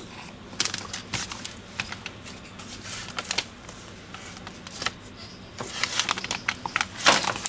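Spatula scraping and tapping against a rubber mixing bowl while scooping dental stone onto an impression, in scattered short scrapes and clicks that come thicker and louder near the end.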